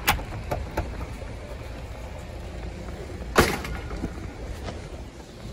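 Low steady rumble of a car, with a few light clicks near the start and one loud thump about three and a half seconds in.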